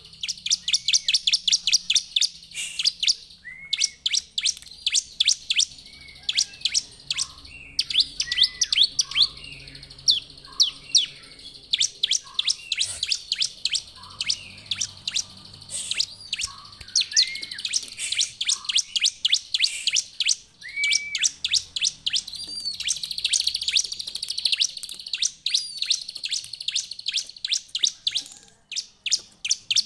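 Bar-winged prinia (ciblek) singing: long runs of rapid, sharp high chips, several a second, mixed with shorter, lower slurred notes, with a short break near the end.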